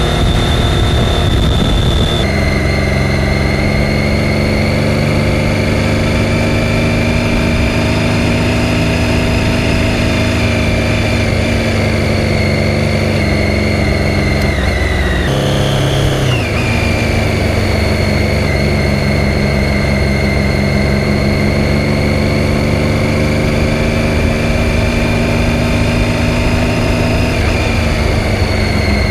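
Triumph Daytona 675's inline three-cylinder engine running steadily under way, its pitch drifting slowly. The engine note changes abruptly about two seconds in and again around fifteen seconds in.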